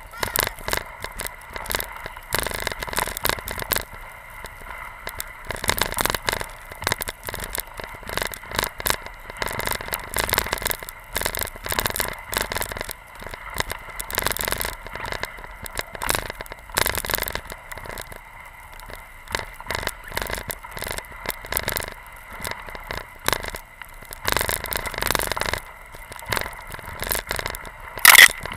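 Hok skis scraping and hissing through deep powder snow while being pulled by a dog, with an irregular crackle of snow spray striking the camera housing. A single loud sharp knock comes near the end, where the camera meets the snow.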